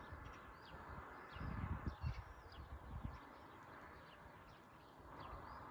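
Dawn outdoor ambience: small birds chirping again and again, faint, over a low rumble.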